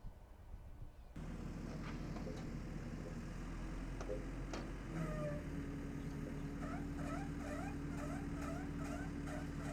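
A machine's engine starts running about a second in and keeps a steady hum. From about two-thirds of the way in, a rhythmic squeak repeats about three times a second, the sound of a dry mechanism that wants a bit of oil.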